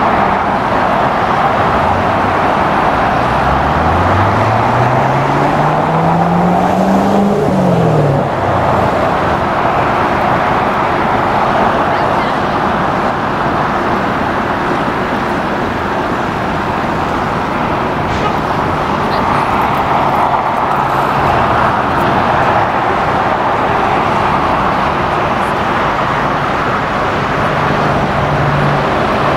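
Steady roar of road traffic. About three seconds in, one vehicle's engine climbs in pitch for several seconds as it accelerates, then drops off.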